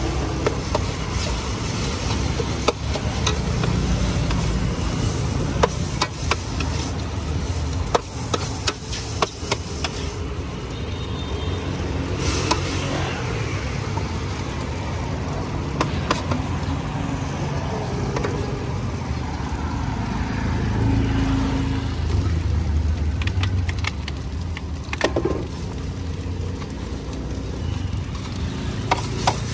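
Metal spatula scraping and clanking against a large steel wok as fried noodles are stirred, with irregular sharp clicks over a steady low rumble.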